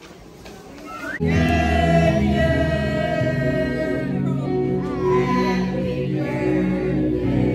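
Music with singing voices over steady bass notes, starting suddenly about a second in after a faint, quiet moment.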